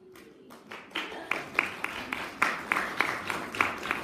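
Audience applauding the end of a talk. It starts faintly and swells within the first second, with separate sharp claps standing out over the patter.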